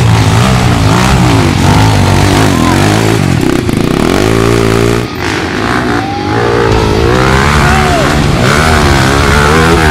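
Off-road dirt bike engines revving hard under load while climbing a loose dirt slope, the pitch rising and falling over and over, with a brief drop about five seconds in.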